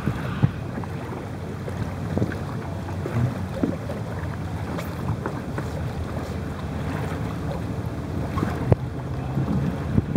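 Wind buffeting the microphone over a steady low rumble on open water, with scattered light knocks and taps, one louder knock near the end.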